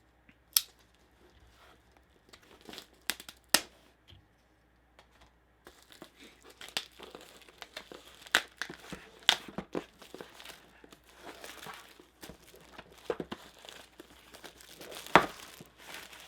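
Cardboard mystery box being opened by hand: a few sharp taps and clicks at first, then from about six seconds in, continuous crinkling and tearing of packaging with frequent sharp snaps.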